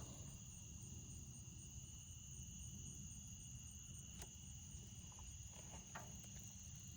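Faint, steady high-pitched chirring of crickets over a low background rumble, with one faint click about four seconds in.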